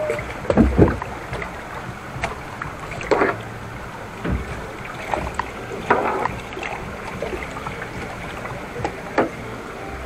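Rapids-ride raft riding down a rushing water channel: steady water noise, with the water slapping against the raft several times, loudest about half a second in.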